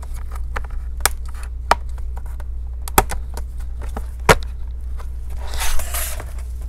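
A pry tool working around the edge of a laptop's bottom cover, its clips snapping loose in a few sharp clicks, the loudest about four seconds in. Near the end, a scraping rustle as the cover comes free and is lifted.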